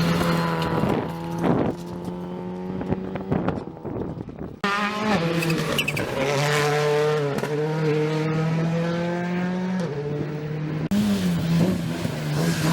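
Rally car engines running hard at high revs, the pitch held fairly steady and then stepping up and down with gear changes and lifts off the throttle. There is an abrupt change of car or shot about four and a half seconds in, and the revs swing up and down near the end.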